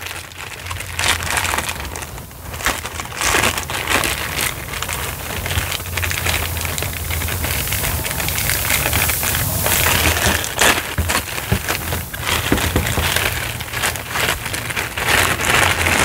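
Clear plastic bag crinkling and rustling as bundled power cables are handled inside it and pulled out, with irregular crackles throughout.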